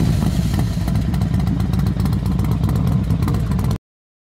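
Royal Enfield Shotgun 650 motorcycle's 648cc parallel-twin engine running steadily just after starting, with a fast, even low beat. It cuts off abruptly near the end.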